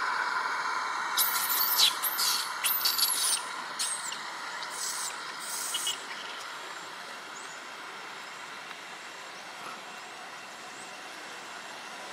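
A quick run of short, high-pitched animal calls from about a second in until about six seconds in, over a steady hiss of outdoor background noise.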